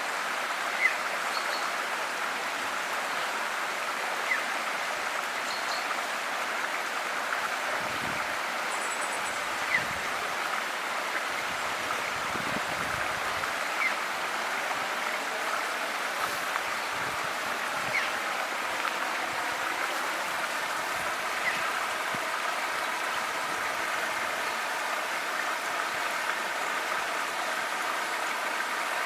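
River water flowing steadily, with a few brief high bird chirps now and then.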